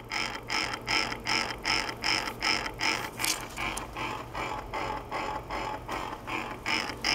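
Industrial servo motor running on a test bench, making a rhythmic mechanical grinding click about two to three times a second over a steady low hum; the clicks fade somewhat in the middle and grow stronger again near the end.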